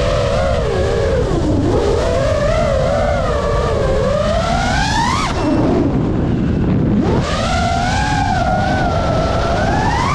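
FPV freestyle quadcopter's brushless motors and propellers whining, the pitch swinging with the throttle: it climbs steadily to a peak about five seconds in, drops sharply, then climbs again near the end, over a steady low rushing noise.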